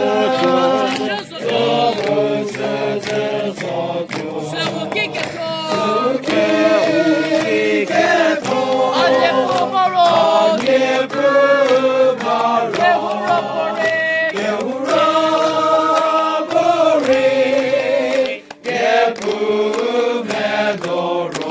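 A group of voices singing together in chorus, holding long notes, with a short break about eighteen seconds in.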